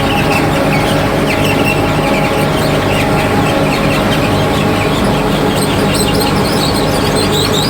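Sawdust briquette production-line machinery running steadily with a constant hum, overlaid throughout by many short, irregular high chirps.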